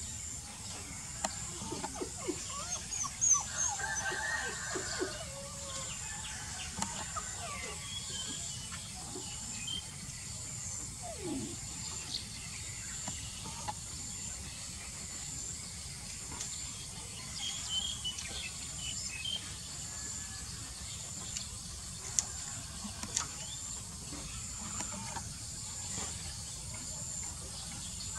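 Rural outdoor ambience: scattered bird chirps and chicken calls over a steady, high-pitched insect trill that pulses about once a second, with a few sharp clicks.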